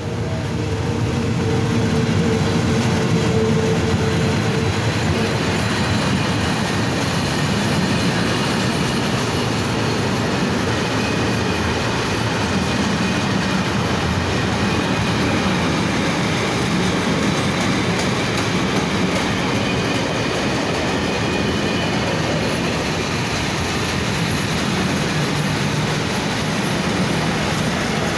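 Freight train passing close by: FS E.652 electric locomotive going by with a steady hum in the first few seconds, then a long string of loaded container and tank wagons rolling past with continuous wheel-on-rail noise.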